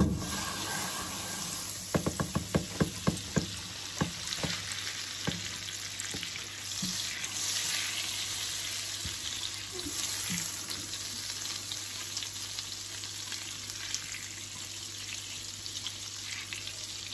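Butter sizzling as it melts in a hot nonstick frying pan. A sharp knock comes right at the start, and a quick run of taps from the silicone spatula in the pan follows between about two and four seconds in.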